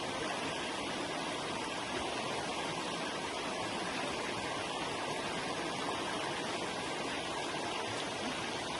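Forest river rushing and babbling over rocks in a steady, even flow.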